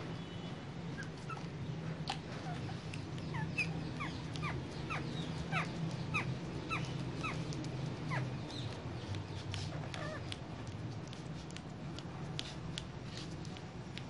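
Rose-ringed (ringneck) parakeets giving a run of short, high squeaky calls, each falling in pitch, about two a second, then scattered sharp clicks in the last few seconds, over a steady low hum.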